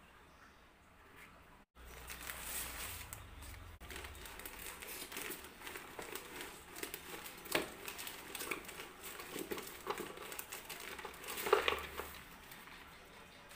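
Black plastic nursery polybag crinkling and crackling as hands peel and tear it away from a root ball of soil and rice husk. A sharper burst of crackling comes near the end.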